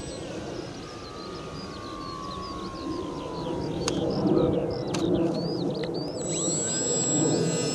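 Polaris RC flying wing's electric motor whining and slowly falling in pitch as it is throttled back for landing, over wind noise and chirping birds. Two sharp clicks come about four and five seconds in, around touchdown, and near the end an ice-cream van's chime tones start up.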